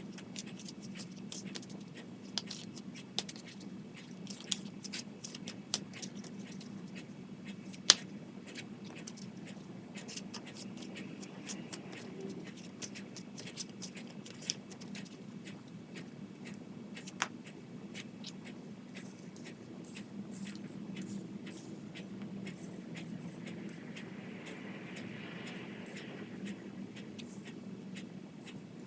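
Oracle cards being handled and shuffled by hand: scattered sharp clicks and flicks of card stock, one louder snap about eight seconds in, over a steady low hum.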